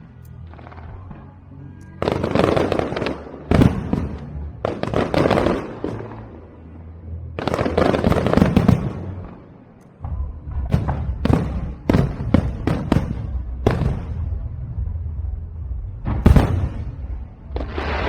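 Aerial fireworks shells bursting overhead: several booming bursts with rumbling tails, then a quick run of crackling reports and one loud bang near the end.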